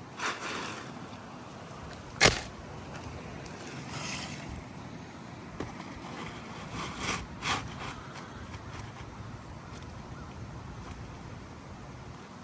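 Hand work on asphalt roof shingles: one sharp knock about two seconds in and several short scraping sounds.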